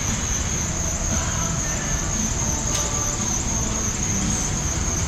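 A steady high-pitched whine over a low rumble, with a single sharp click a little past halfway.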